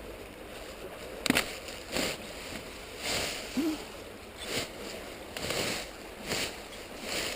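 Footsteps crunching and rustling over frozen ground and leaf litter, roughly one a second, with a sharp crack about a second in.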